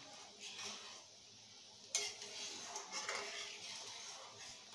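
Spatula stirring jaggery syrup in a metal kadai: faint scraping and swishing against the pan, with one sharp tap about two seconds in.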